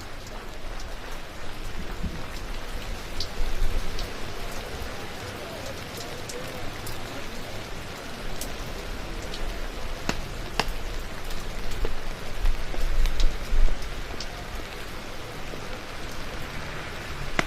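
Steady rain falling, with scattered sharp ticks of drops striking close by and a low rumble at times.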